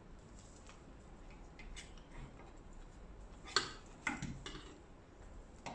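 Faint clinks and taps of a serving spoon against a serving bowl and plates as curry is served, with three sharper clinks a little past halfway.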